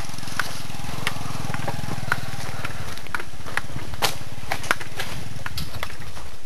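Small motorcycle engine running steadily at low speed on a rough dirt track, dipping briefly about halfway. Sharp clicks and knocks are scattered through, about two a second.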